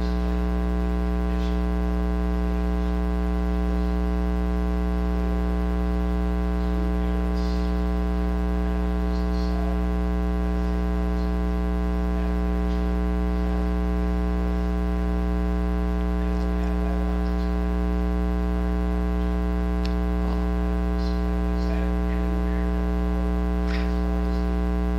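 Loud steady electrical mains hum, a buzz with many overtones, on the recording. Under it, a faint distant voice of someone asking a question off-microphone.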